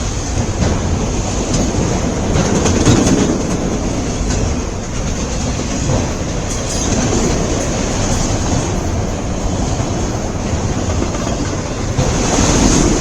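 Freight cars of a long CN manifest train rolling past at speed: a steady heavy rumble with wheels clicking over the rail joints.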